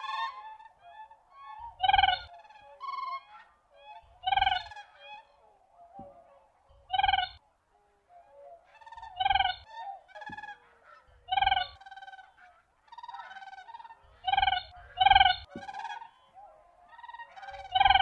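Siberian cranes calling: loud, high, ringing calls repeated about every two to three seconds, with fainter calls in between.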